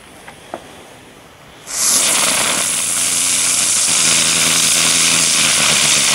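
Weco 'Dicke Brummer' ground spinner firework igniting with a sudden loud hiss a little under two seconds in, then hissing steadily as it spins. A low buzzing hum joins under the hiss a couple of seconds later.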